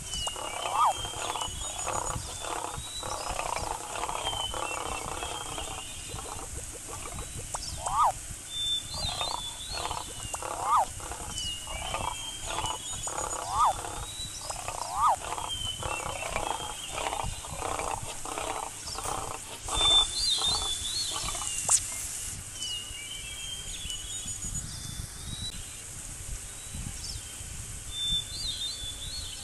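Lion sound effects: a long run of short, repeated grunting calls broken by brief rising-and-falling cries, over birds chirping. A loud rush of noise comes about two-thirds through, after which the lion calls stop and the birdsong goes on.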